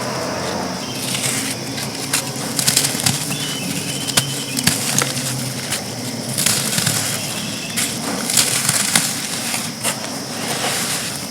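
Dry chunks of pressed sand being crushed and crumbled, a continuous crisp crunching with many sharp crackles.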